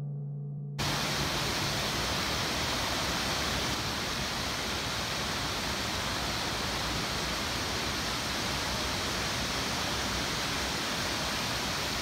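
A held gong tone from background music cuts off abruptly about a second in, giving way to the steady rushing of a waterfall, water cascading over flat rock.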